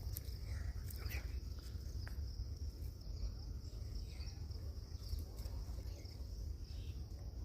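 Crickets or other insects chirring in one steady high-pitched drone, over a constant low rumble, with a few faint clicks.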